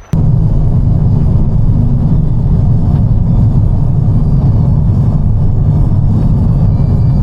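A loud, steady low rumble that cuts in abruptly right at the start.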